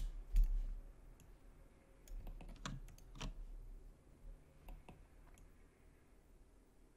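Faint, scattered clicks of a computer mouse and keyboard: mouse-button clicks and scroll-wheel ticks at irregular intervals. A low thump comes about half a second in.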